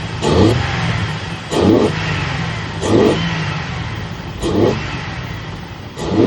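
Dodge Hellcat V8 idling with a dead misfire on cylinder 1, which is getting no fuel. The throttle is snapped five times, each a quick rev that rises and falls back to idle, about every second and a half.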